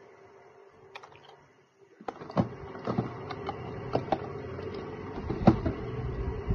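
Small plastic paint bottles clicking and knocking against each other and the sides of a plastic storage drawer as they are packed in. The drawer then slides shut with a louder knock about five seconds in.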